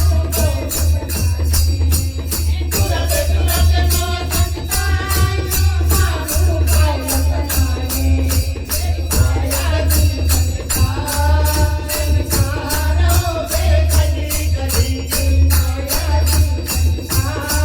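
Hindi devotional bhajan (Mata jagrata kirtan): a voice singing the melody over a steady jingling percussion beat of about four strokes a second and a heavy bass accompaniment.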